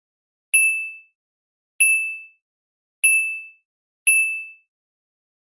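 A bell-like chime dings four times, about a second apart, each a single high clear tone that fades within half a second.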